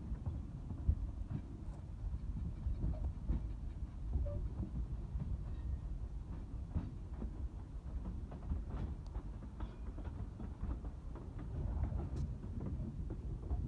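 Narrow-gauge railway carriage running along the track: a steady low rumble from the wheels and running gear, with irregular clicks and knocks throughout.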